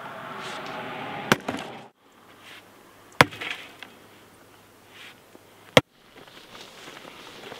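Three sharp single knocks about two seconds apart over a faint background hiss; the hiss cuts out suddenly shortly after the first and the third knock.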